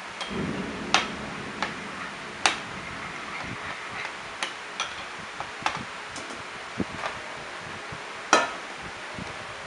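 A metal spoon clinking and scraping against a small ceramic bowl as a liquid is stirred: irregular sharp clicks, the loudest about a second in, about two and a half seconds in and near the end.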